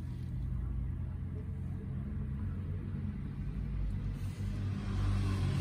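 A motor vehicle's engine running steadily with a low hum, growing louder near the end.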